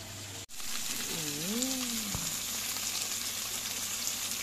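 Chicken, eggplant slices and sausages sizzling in oil on an electric grill pan, a steady even hiss. It starts abruptly about half a second in, replacing a low hum. About a second in comes a short voice-like hum that rises and falls in pitch.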